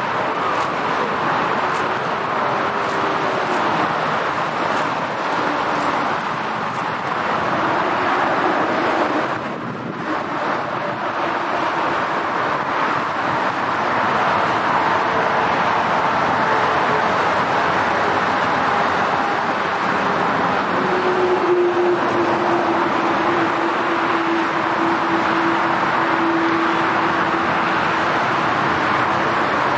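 Boeing 747 jet engines at takeoff thrust: a steady roar with faint tones that drift in pitch, dipping briefly about ten seconds in.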